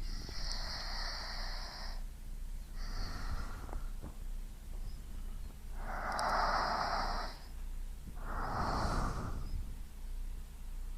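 A person breathing slowly and audibly close to binaural microphones: four breaths, each lasting one to two seconds, with short pauses between them. The second breath is fainter than the others.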